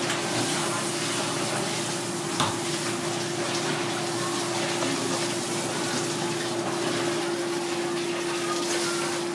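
Kitchen background noise: a steady hiss with a constant mid-pitched hum running under it.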